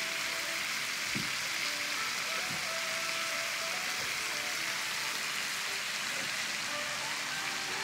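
Lobster tail pieces sizzling steadily in butter sauce in a hot pan, a continuous frying hiss.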